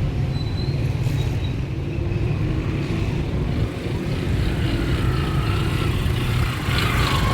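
City street traffic: a steady low rumble of passing cars and motorcycles, with a short hissing burst near the end.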